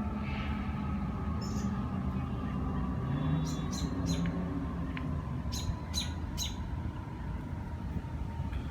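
A small bird chirping in short, high calls: one, then a quick run of three, then another run of three. Under it runs a steady low background rumble, like distant traffic.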